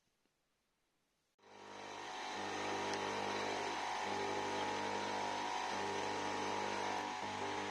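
Small table saw's electric motor switched on about a second and a half in, spinning the blade up over about a second and then running steadily.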